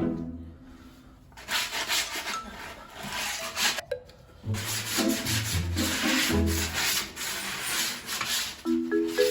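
Wood being sanded in repeated rubbing strokes, most likely the plywood for the table, with light background music.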